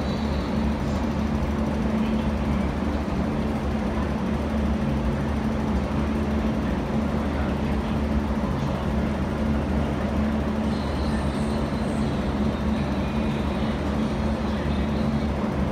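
Steady low hum and rumble of an underground metro station platform, with a constant droning tone and deep rumble throughout.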